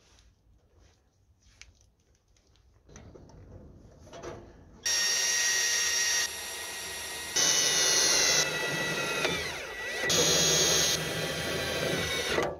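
Cordless drill boring through a hinge into a sheet-steel lid: a loud steady motor whine starting about five seconds in, its speed dropping and picking up again several times before it stops near the end.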